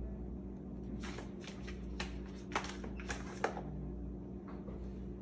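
A cat pulling up its rubber feeding mat, the mat and its small food bowls shifting on a wooden floor: a quick run of light clicks and scrapes, over a steady low hum.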